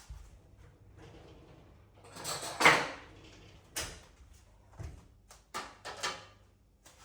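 A string of short knocks and clicks from objects being handled, with a louder, longer noisy sound about two and a half seconds in.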